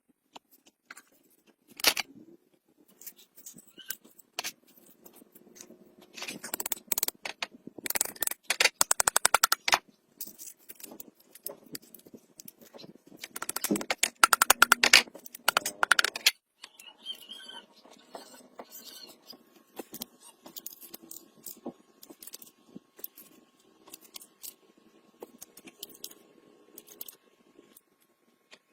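Scraping, clicks and knocks of hand work, with two spells of rapid, evenly spaced clicking about a third and half of the way through.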